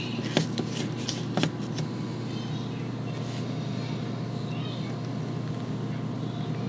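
A few sharp clicks in the first second and a half as a small cup of fish-food pellets is handled, over a steady low hum.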